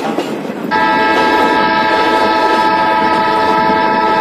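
Train's locomotive horn sounding one long, steady blast that starts about a second in, over the running noise of the moving train heard from an open coach doorway.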